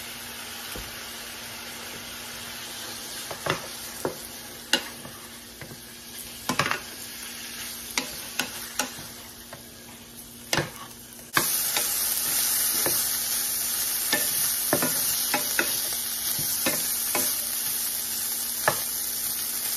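Diced chicken frying in butter, sesame oil and soy sauce in a skillet: a steady sizzle, with a wooden spatula scraping and knocking against the pan as the pieces are stirred and turned. A little over halfway through, the sizzle steps up suddenly and stays louder.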